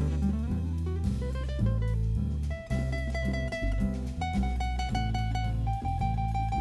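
Instrumental music: a steady bass line, with held melody notes entering about two and a half seconds in.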